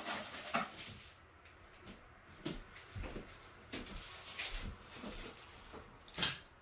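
Someone handling objects while fetching paint brushes: scattered light knocks, clicks and rustles, with a sharper knock about six seconds in.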